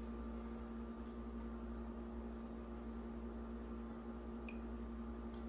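Steady low electrical hum, with a few faint soft wet handling sounds as a raw halibut fillet is dipped into a bowl of egg and milk.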